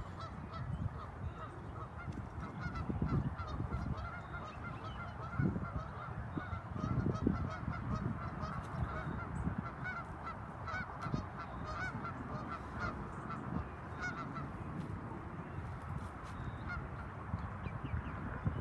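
A flock of geese honking continuously, many short overlapping calls, over a low rumble.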